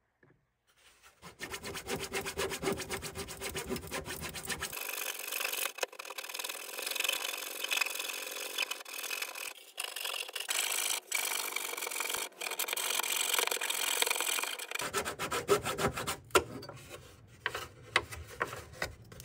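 Small razor saw in a hobby-knife handle cutting through a small wooden block glued inside a balsa fuselage, in quick short back-and-forth strokes that start about a second in. Near the end the sawing gives way to a few separate knocks.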